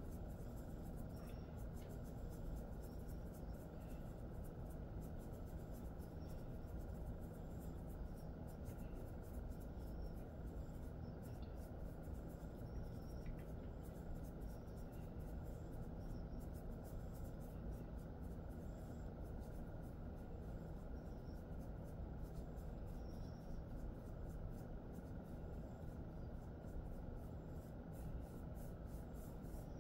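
Hands massaging a dog's coat: steady soft rubbing and rustling of fingers through fur, over a faint steady hum.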